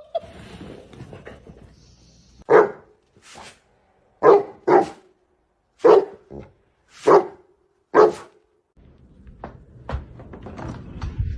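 A dog barking, about six single barks spread a second or so apart.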